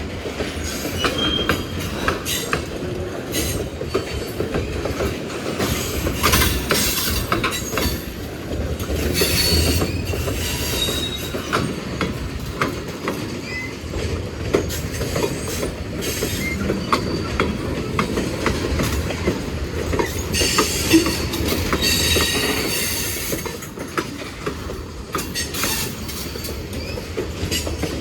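Freight cars of a Norfolk Southern manifest train rolling past: a steady low rumble, wheels clacking over rail joints, with squealing from the wheels at times.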